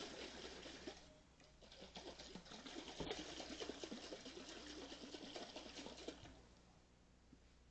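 Faint sloshing of thickened liquid in a glass mason jar being shaken by hand to dissolve instant pudding mix in liquor, stopping about six seconds in.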